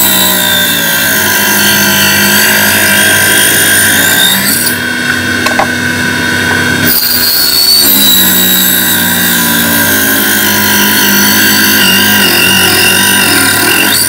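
Mini benchtop table saw cutting through a wooden board: the motor's whine sags in pitch under load and a loud hissing cutting noise rides over it. Near the middle the hiss stops for about two seconds while the blade spins freely at a steady pitch, then a second cut begins.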